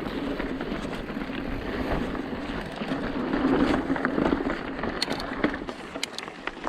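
Mountain bike rolling over a dirt trail: a steady rumble of tyres and rattling bike, with wind on the microphone. A few sharp clicks and rattles come near the end.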